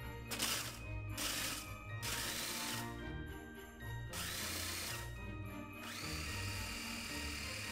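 KitchenAid mini food processor grinding graham crackers into crumbs. It runs in four short pulses, then steadily from about six seconds in, with a motor whine that rises as it spins up.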